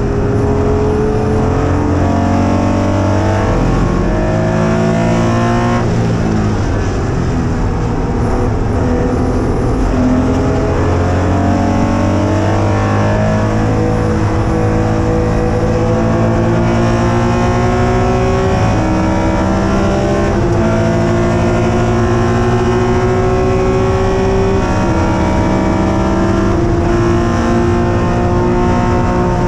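Air-cooled flat-six engine of a classic Porsche 911 RSR race car under hard acceleration, heard from inside the cockpit. Its note climbs steadily through each gear and drops sharply at upshifts about 18, 20 and 25 seconds in.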